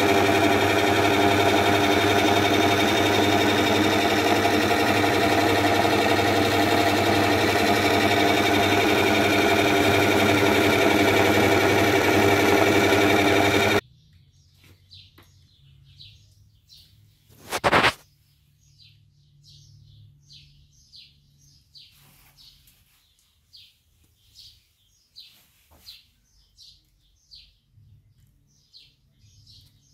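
Small bench lathe's electric motor running steadily, a hum with several held tones, as it spins a steel drill-press column being polished with a cloth. The sound cuts off abruptly about 14 seconds in. After that come faint bird chirps and a single sharp knock just before 18 seconds.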